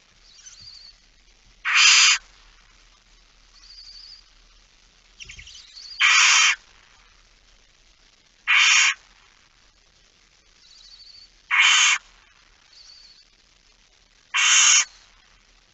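Barn owls giving five loud hissing screeches, each about half a second long and a few seconds apart, with faint short high chirps between them.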